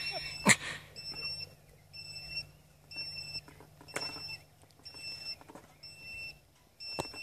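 An electronic beeper sounding a high beep about once a second, with a sharp clack about half a second in and a couple more later. A low steady hum underneath stops about six seconds in.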